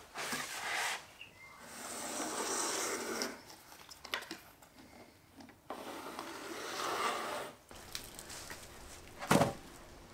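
Wood scraping and rubbing in several separate strokes as a curved laminated skirting board is worked along its bottom edge, with one sharp knock near the end.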